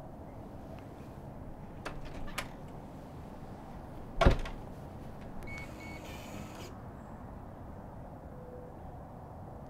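A loud thump, then an electronic keypad deadbolt beeping twice and its motor briefly running as the bolt turns. A few light clicks come before.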